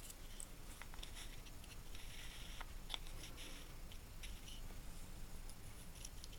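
Faint scattered clicks and short light rustles of a machinist's dial indicator and its case being handled.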